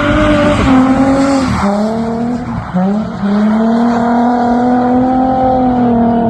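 Holden Calais V6 engine held at high revs during a drift, with tyre squeal. The revs dip about a second and a half in and again near three seconds, then hold steady.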